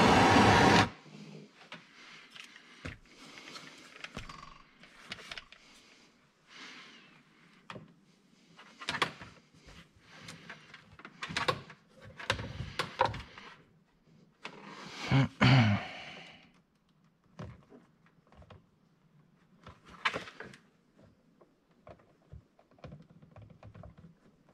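Scattered small clicks, rustles and plastic creaks from wires and crimp connectors being handled in the plastic dash of a side-by-side. About fifteen seconds in there is a louder knock.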